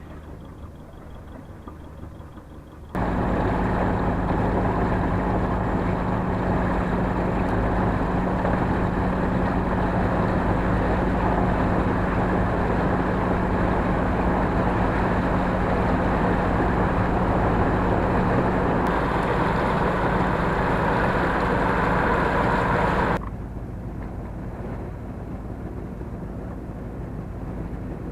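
A sailboat's inboard engine running steadily under way, a constant low hum with a rushing wash of wind and water over it. The rushing noise comes in suddenly about three seconds in and cuts back about twenty-three seconds in, leaving the engine hum quieter.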